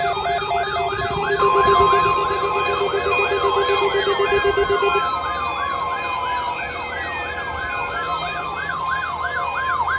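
A NOAA Weather Radio warning alarm test: a steady alert tone of about 1 kHz starts about a second in and holds to the end, layered over a siren-like tone wavering up and down about three times a second. A pulsing lower tone stops about halfway through, and several falling whistle-like sweeps slide down across it.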